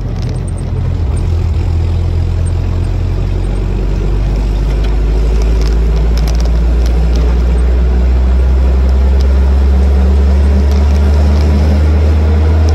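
Replica WWII Jeep's engine running under way, a steady low drone that slowly rises in pitch and grows a little louder as the Jeep gathers speed, with wind and road noise around it.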